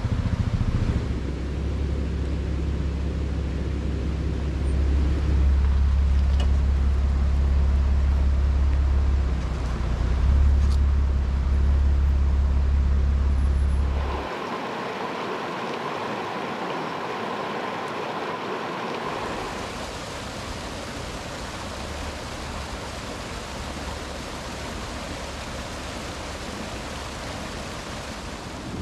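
Jeep Wrangler engine running at crawling speed on a dirt track, a steady low hum. About halfway through it cuts off, and a steady rush of a mountain creek tumbling over rocks takes over.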